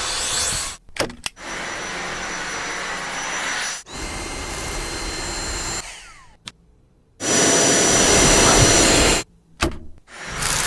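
Vacuum cleaner motor running with a steady whooshing hum, in several stretches that cut off and restart abruptly, with short near-silent gaps between them. The loudest stretch comes about two-thirds of the way in.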